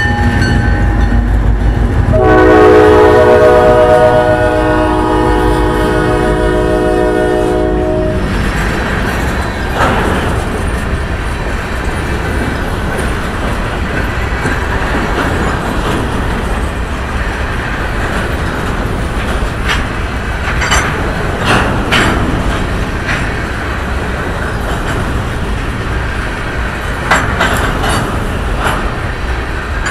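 A Huron & Eastern freight locomotive's multi-chime air horn sounds one long blast for the grade crossing, starting about two seconds in and cutting off about eight seconds in. A train of covered hopper cars then rolls past close by with a steady rumble of wheels on rail and sharp clacks as the wheels cross rail joints.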